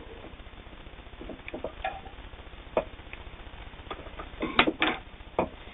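Scattered light clicks and knocks of a vintage all-metal sewing machine and its fabric being handled, with no steady stitching rhythm; a denser cluster of louder clicks comes about four and a half seconds in.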